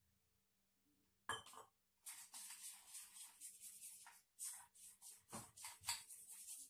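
Besan (gram-flour) batter being beaten in a bowl: a run of quick scraping, clinking strokes, about two a second, starting about two seconds in, after a single knock a little after one second in.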